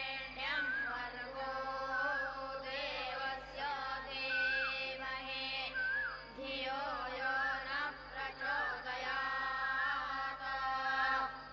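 Chanting voices, with a melodic line that bends up and down in pitch, over steady held tones.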